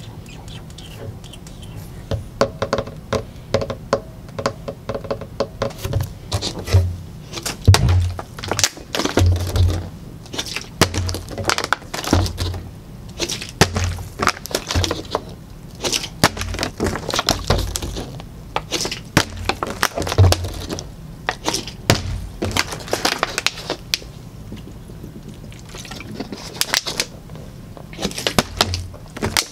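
Hands knocking and tapping on a wooden tabletop, together with a plastic water bottle being handled and knocked against it: irregular sharp clicks and knocks, with a low thump about every second and a half through the middle.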